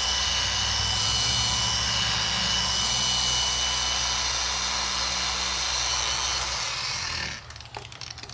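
Electric machine polisher running steadily at speed while buffing a plastic headlight lens with polish, with a constant high whine. It is switched off about seven seconds in and spins down.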